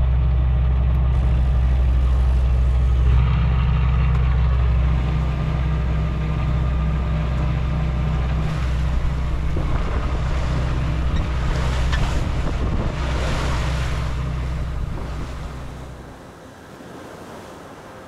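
Sailboat's engine running steadily under way, with water rushing and splashing along the hull; the engine hum and the water fade out near the end.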